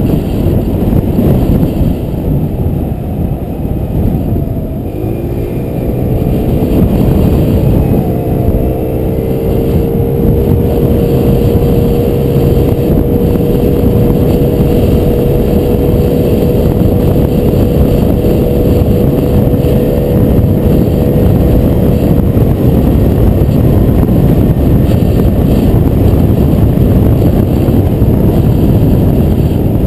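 Scooter engine running as the scooter rides along, heavily mixed with wind buffeting on the camera's microphone. The engine's pitch drops a few seconds in, then climbs back and holds steady before sinking into the wind noise later on.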